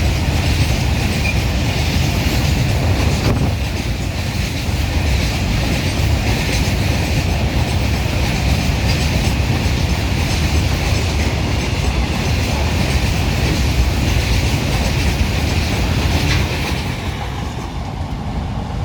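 Freight train running past at speed: a loud, continuous rumble with wheels clattering on the rails. The noise eases a little near the end.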